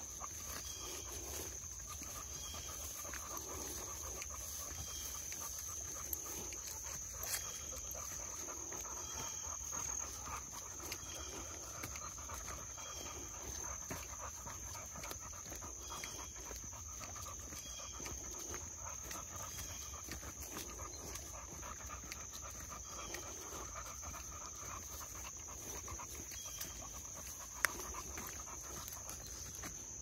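Boxer dogs panting as they walk on leash, over a steady high-pitched drone of insects. A single sharp click near the end.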